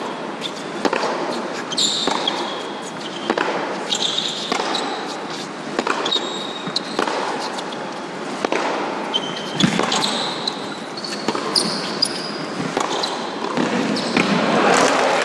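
Tennis rally on an indoor hard court: racket strikes and ball bounces about once a second, with short high squeaks of shoes on the court between them.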